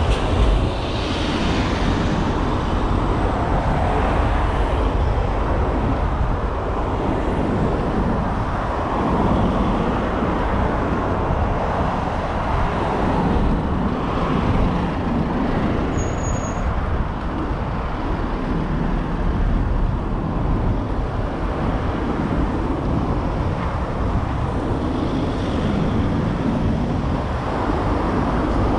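Steady city street traffic noise, vehicles passing with a continuous low rumble that swells and fades gently.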